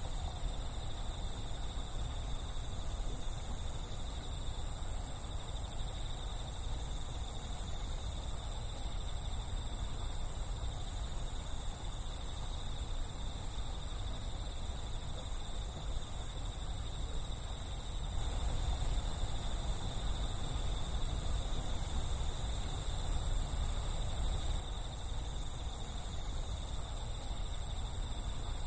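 Crickets and other autumn night insects trilling in a steady, unbroken chorus, over a low steady rumble.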